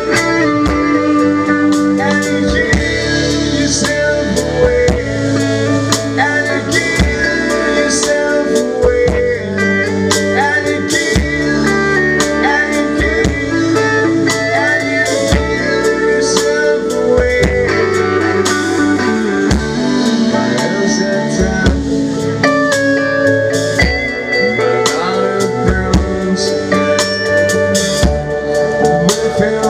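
Live band playing: a drum kit with cymbals keeping a steady beat under electric guitar.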